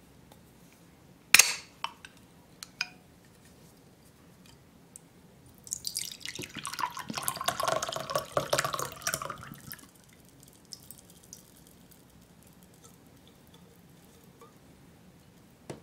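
An aluminium drink can's pull tab is cracked open with one sharp pop about a second in, followed by two lighter clicks. A few seconds later the drink is poured into a glass for about four seconds, then stops.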